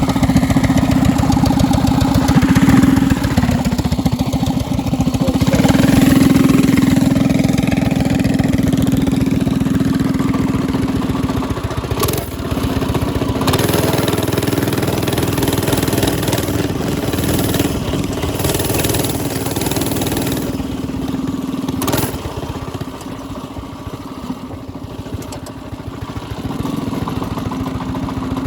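Small mini bike engine running, mostly idling with its pitch shifting a few times. There are two sharp clicks, about twelve seconds in and about twenty-two seconds in, and it runs a little quieter after the second.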